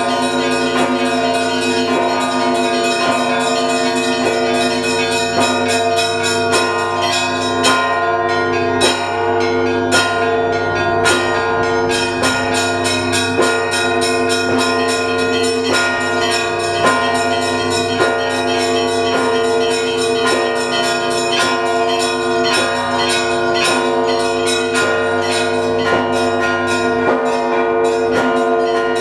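Russian Orthodox monastery bells ringing a full festive peal for Easter week, the call to the evening service. Small bells are struck rapidly and without pause over the long ringing tones of the larger bells.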